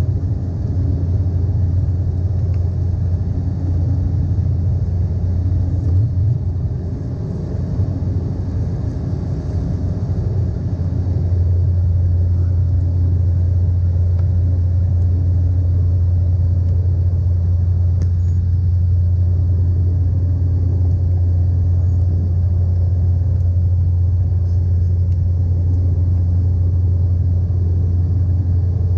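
Inside the cabin of an Embraer 195 climbing after takeoff, beside the wing engine: a steady low drone of the GE CF34-10E turbofans and rushing air. It dips slightly in loudness about seven seconds in and holds steady again from about eleven seconds.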